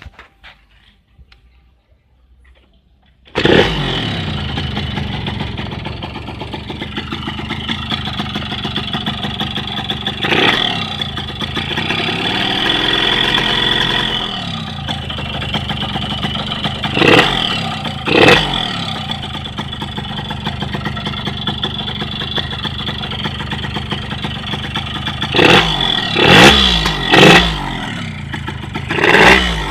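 Yamaha RX-King's 135 cc single-cylinder two-stroke engine catching about three seconds in, then idling with sharp throttle blips, one slower rev in the middle and a quick cluster of revs near the end. The running note is harsh, which the owner calls a rough engine sound.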